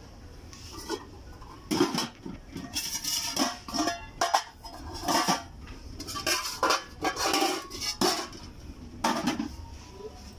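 Metal cooking pots and their lids clanking and clattering as they are handled and lifted from a stack: a run of knocks with brief metallic ringing from about two seconds in until near the end.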